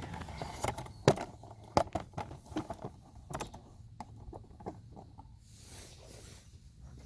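Scattered light clicks and knocks of hands and tools working on the intake hose clamp in a car's engine bay, the sharpest about a second in and again just before two seconds in.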